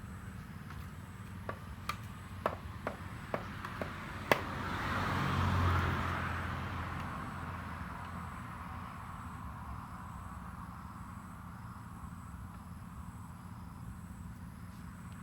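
A few light taps and clicks in the first four seconds, then a passing vehicle that swells to a peak about six seconds in and slowly fades away.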